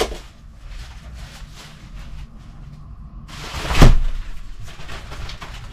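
Umbrella pushed open, the canopy snapping taut about three and a half seconds in with a sudden whoosh and a thud. Plastic pouches of banknotes hanging inside rustle as it is handled.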